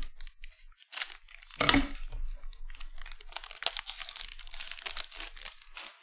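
Plastic foil wrapper of a 2020-21 Select basketball card pack crinkling and tearing as it is ripped open by hand, with a short thump just before two seconds in.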